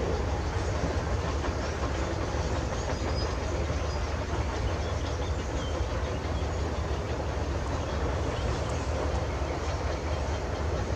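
Kubota M9540 tractor's four-cylinder diesel engine running steadily under load as the tractor pulls a disc plough through the soil, with a deep low rumble.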